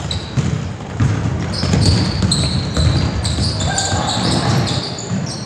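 Basketball sneakers squeaking on a hardwood gym floor, many short high squeaks in quick succession, over a basketball bouncing and the murmur of spectators echoing in the gym.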